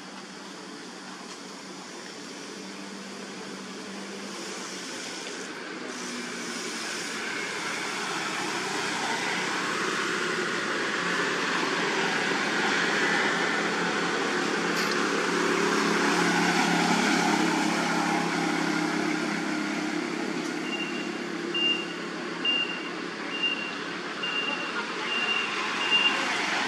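A motor vehicle's engine and tyre noise growing gradually louder, peaking past the middle and then easing off. In the last several seconds a short high beep repeats steadily, a little more than once a second.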